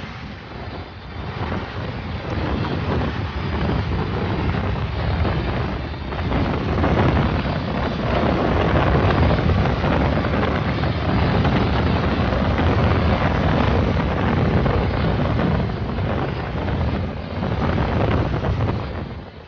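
Wind buffeting the microphone as it is carried along, over the steady rumble of road traffic.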